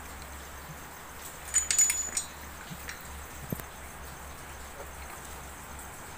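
Metal parts of a Yamaha Mio scooter's CVT variator clinking as the roller housing is worked off the crankshaft: a short run of ringing clinks about one and a half seconds in, then a single knock about a second later.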